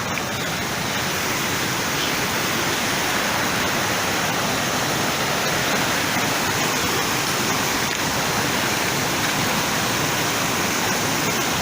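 Steady, even rush of fast-flowing water, like a Himalayan mountain stream or waterfall.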